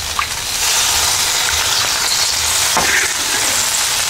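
Steady sizzling hiss of food cooking on a hot stove, with a low hum underneath.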